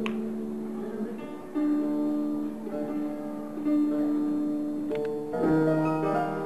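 Harp played solo: single plucked notes left to ring, each new note entering over the last, with a fuller group of notes sounding together about five seconds in.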